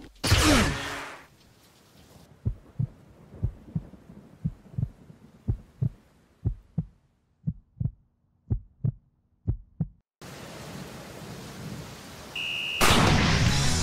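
Heartbeat sound effect: slow, low thumps in lub-dub pairs about once a second, after a brief loud rush of noise at the start. About ten seconds in the heartbeat gives way to steady rain, and loud music with a beat comes in near the end.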